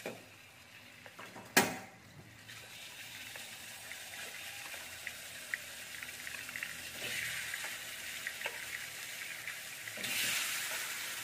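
Raw chicken pieces sizzling and crackling as they go into hot oil and margarine in a stainless steel wok, with scattered pops. A sharp clank about one and a half seconds in; the sizzle builds steadily and swells again near the end as more chicken is added.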